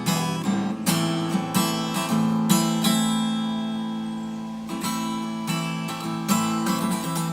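Acoustic guitar strumming chords in an instrumental passage with no singing. About three seconds in, one chord is left ringing and fading for nearly two seconds before the strumming picks up again.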